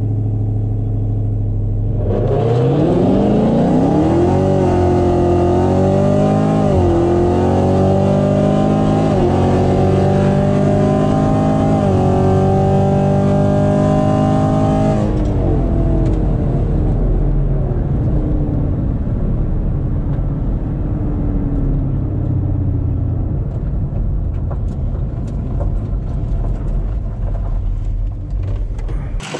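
Chevrolet Camaro's engine heard from inside the cabin: idling at the line, then launching hard about two seconds in, the revs climbing through several quick upshifts for some thirteen seconds. At about 15 s the throttle is lifted and it drops to a low drone as the car coasts down.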